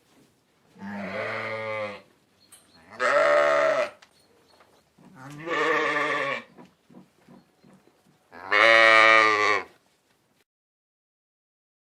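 Sheep bleating: four separate wavering baas, each about a second long, spaced a second or two apart.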